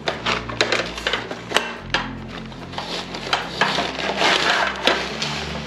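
A folded aluminium-alloy roll-up camping tabletop and its legs being pushed into a fabric carry bag: the bag rustles and scrapes while the metal slats clack against each other in irregular sharp clicks, the longest rustle about four seconds in.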